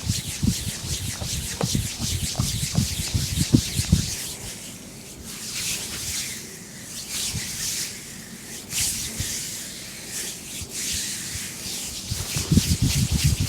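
Massage hands rubbing and sliding over skin, a steady swishing. Soft patting thumps come in the first few seconds and again near the end.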